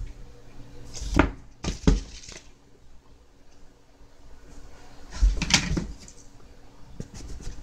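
Grafting knife cutting down into a small woody scion and being handled: a few short clicks and scrapes about a second in and again near two seconds, then a longer scraping cluster around five seconds in.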